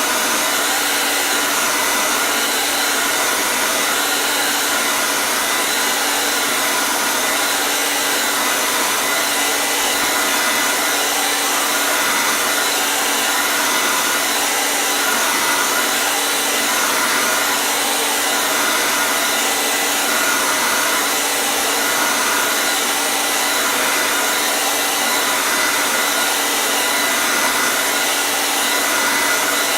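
Hair dryer running steadily: a continuous even whoosh of blown air and motor with a faint steady whine.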